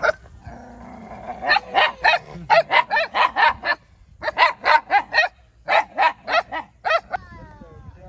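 Puppy barking in high-pitched yaps, about three a second, in three quick runs with short pauses between them.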